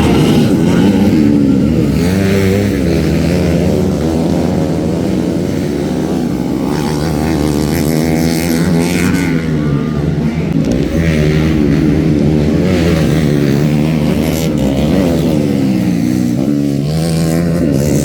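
Motocross dirt bike engines revving hard, their pitch rising and falling over and over as the bikes accelerate, shift and back off around the track.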